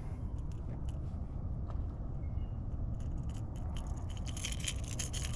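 A topwater lure being worked free of a spotted seatrout held in hand: a scatter of small clicks and light rattles, thicker near the end, over a steady low rumble of wind on the microphone.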